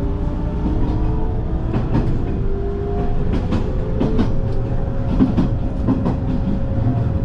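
Hanshin Mukogawa Line electric commuter train running, heard from inside the carriage: a steady rumble with faint motor tones and several pairs of quick clicks as the wheels pass over rail joints.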